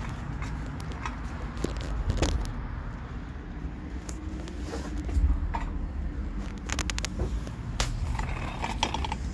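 Knocks, clicks and scrapes of a plastic portable toilet's door and walls as it is handled and pushed open, with phone handling rustle over a steady low rumble.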